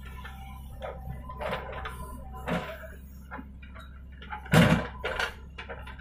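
JCB 3DX backhoe loader's diesel engine running steadily while the backhoe works, with several knocks and scrapes of soil and bucket. The loudest, a short crash, comes about four and a half seconds in.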